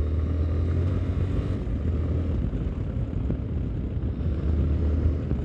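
Yamaha Ténéré 250's single-cylinder four-stroke engine running steadily under way on a dirt road, heard from on the bike, with a constant low drone.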